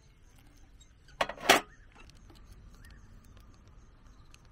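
Camping kettle set down on a metal folding table: a short clatter of two quick knocks about a second and a half in, over a faint outdoor background.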